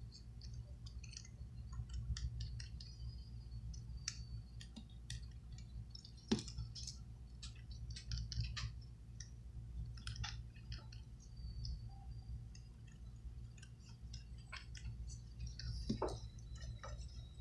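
Scattered small clicks and ticks of hand tools (tweezers, small screwdriver) working on a phone's screen assembly as parts are taken off, over a steady low hum. One sharper click comes about six seconds in.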